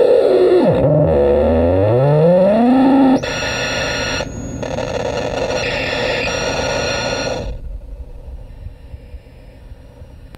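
Homemade crystal-radio noise synth giving a harsh, noisy tone whose pitch dips low and sweeps back up. About three seconds in it switches suddenly to a buzzing drone with a brief break, then cuts off a few seconds later, leaving only a low background noise.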